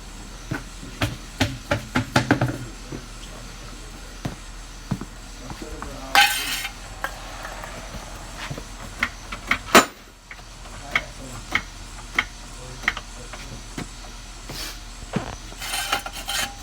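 Scattered metal clinks and knocks as tools and a steel jack stand are handled and set in place under the car, with two short hissing scrapes, one about six seconds in and one near the end.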